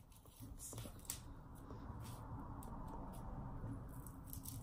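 Velcro strap on a dog boot being pulled tight and pressed closed: a few short scratchy rips, about a second in and again near the end, with faint handling rustle over a steady low background hum.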